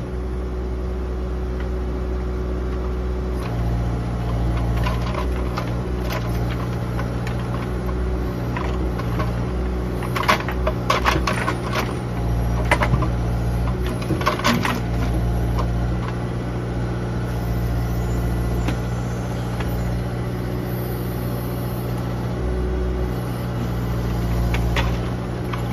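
Morooka MST600 crawler forwarder's diesel engine running steadily, with a hydraulic whine that comes and goes as the crane and grapple work. Around the middle comes a cluster of knocks and clatter as logs are gripped and set down on the pile.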